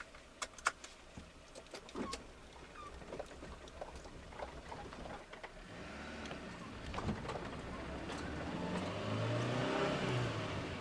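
Seatbelt being pulled across and buckled with a few sharp clicks, then the van's engine running as it pulls away, heard from inside the cab. The engine grows louder and rises in pitch, then falls near the end.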